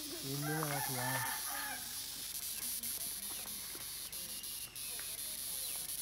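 Steady high buzz of cicadas in the trees. A loud, drawn-out pitched call rises over it near the start and lasts about a second and a half.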